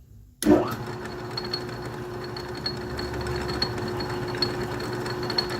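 Atlas metal lathe running in back gear, starting abruptly about half a second in and then running steadily, a little rattly, with a faint high whine and light regular ticking.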